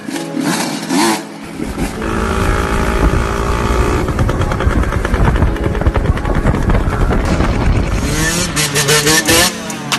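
Dirt bike engines revving during wheelies: a steady heavy engine drone from about a second and a half in, then the engine note swooping up and down in quick revs near the end.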